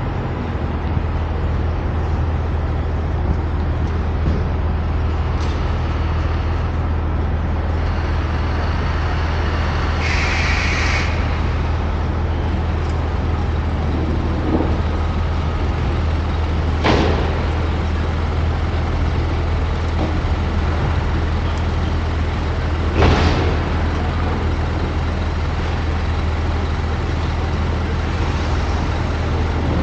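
Car driving through city traffic: a steady low road rumble, with a short hiss about ten seconds in and two sharp knocks later on, the second the loudest.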